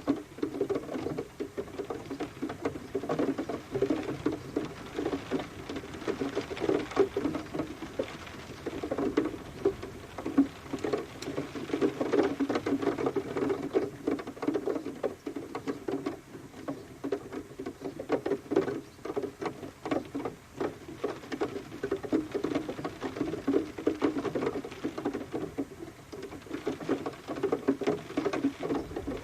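Rain falling: a dense, irregular patter of drops tapping on a surface, steady throughout.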